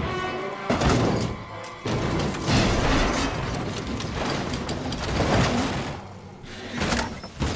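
Film soundtrack of an animated stock-car crash: several heavy crash and impact effects as the car tumbles and digs into the dirt, over music.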